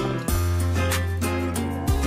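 Background music with a steady beat over held bass notes that change about a third of a second in and again near the end.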